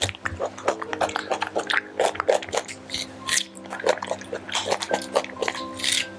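Young macaque chewing and biting cucumber: a run of irregular wet, crunchy clicks and squishes, over steady background music.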